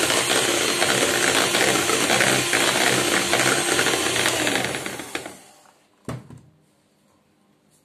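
Electric hand mixer running steadily, its beaters whipping cream in a bowl; it is switched off about five seconds in and winds down. A single knock follows.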